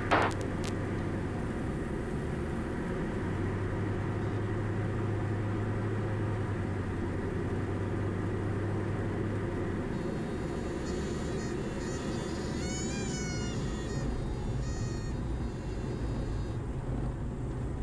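Steady engine and airflow drone inside the cabin of a Diamond DA40 light aircraft on final approach and touchdown. A low hum in the drone drops away about ten seconds in, and a short wavering whine comes a few seconds later.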